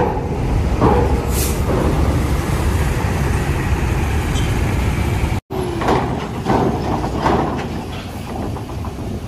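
Coach bus's diesel engine running with a deep, steady rumble as the bus drives up a steel ferry ramp, with a short burst of air hiss about a second and a half in. After a brief break near the middle the rumble goes on, lighter, with a few sharp knocks.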